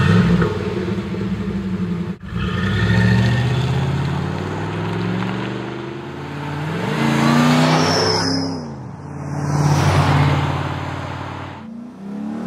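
Exhaust of an LS V8 in a Chevrolet C10 pickup, heard through a Flowmaster 80 Series cross-flow muffler. It holds a deep, steady idle at first, then is blipped up and let fall back a couple of times in the second half.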